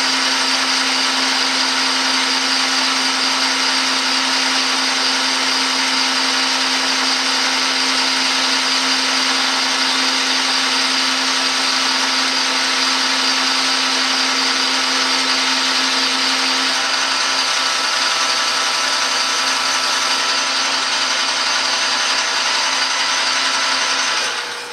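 Metal lathe running and taking a turning cut along a metal bar: a loud, steady machine whirr with a low hum that fades out about two-thirds of the way through. The noise drops away sharply just before the end as the cut finishes.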